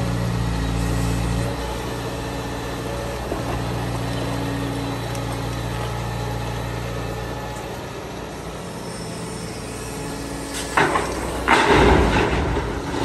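Heavy diesel engine of a Liebherr R940 excavator running steadily. Near the end come two loud crashing clatters, the second longer.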